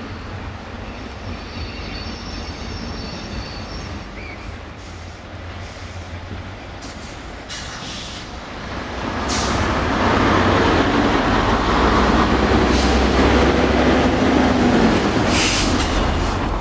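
Class 67 diesel-electric locomotive running light engine, its EMD two-stroke V12 diesel humming steadily as it approaches, with a faint high wheel squeal in the first few seconds. From about nine seconds in it grows much louder as it draws close, wheel and rail noise joining the engine, with a few clicks over the rail joints.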